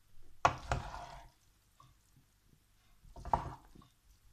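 Wooden spatula knocking and scraping against a nonstick frying pan while stirring and tossing cooked pasta in sauce, in two short bouts, about half a second in and about three seconds in.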